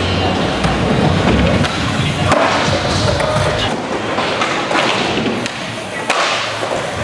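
Skateboard wheels rolling on a smooth concrete skatepark floor, with sharp board clacks and landing thuds, a couple of them standing out.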